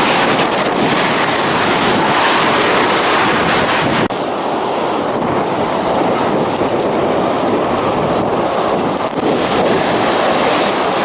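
Typhoon-force wind blowing hard and buffeting the microphone as a loud, unbroken rush. About four seconds in, the upper hiss drops away and the rush sounds darker.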